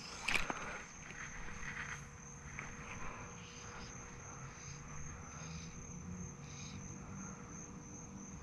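Insects droning steadily in one high, even tone, with a fainter chirp repeating about once a second. A brief rustle near the start is the loudest sound.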